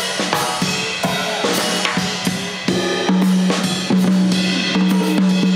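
Live band music led by a drum kit, with snare, bass drum and cymbal hits in a busy fill or solo passage. From about halfway through, a low note is held underneath.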